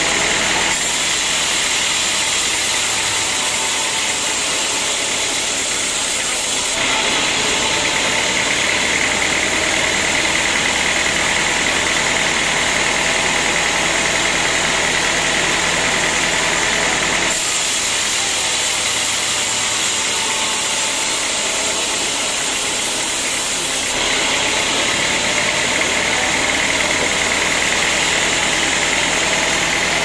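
Band sawmill running steadily, its blade sawing a teak log. A high whine, a little louder, comes in twice and drops out in between.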